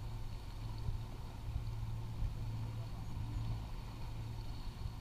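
Steady low hum with a rumble beneath it aboard a sailboat, typical of the boat's engine running.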